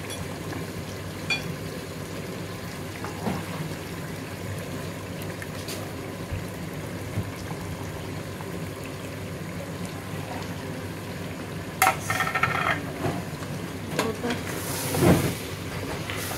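Chickpeas and chicken masala sizzling steadily in a metal pressure cooker on a gas flame. From about twelve seconds in, a wooden spoon scrapes and knocks against the pot as the mixture is stirred, loudest near the end.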